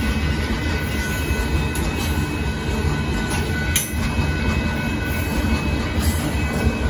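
Union Pacific limestone train's freight cars rolling past at a grade crossing: a steady, loud rumble of steel wheels on rail, with a sharp click a little under four seconds in.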